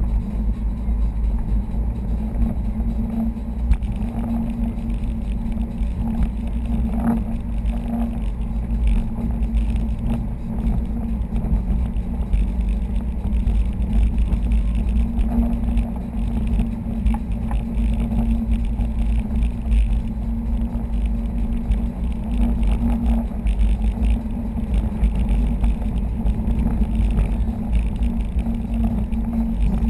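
Steady low rumble of a 2011 Subaru STI's turbocharged flat-four engine, tyres and road, heard from inside the closed cabin with the air conditioning running, at a cruise of about 40 mph on a winding road.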